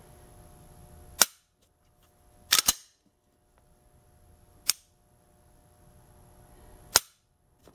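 Glock 17 Gen 5 with its factory trigger being dry-fired: sharp metallic clicks of the striker letting go and the trigger resetting. First a single click, then a quick double click, then two more single clicks about two seconds apart.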